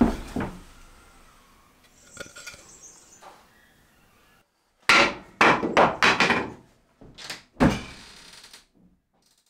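A quick run of heavy wooden knocks and thumps about five seconds in, then two more a little later, after fainter handling sounds.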